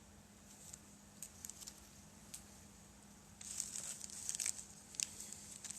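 Packaging crinkling and rustling in sporadic crackles as parts are handled, becoming denser and louder about three and a half seconds in.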